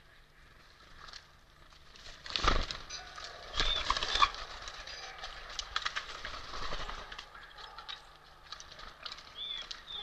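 Birds pecking and tapping at seed and nuts on a wicker basket feeder: a quick run of sharp taps and a few dull thumps from about two and a half seconds in to about seven seconds. Short high bird chirps sound twice.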